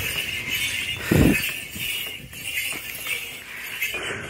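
A bullock walking up stone steps, its bells jingling steadily, with a brief low thud about a second in.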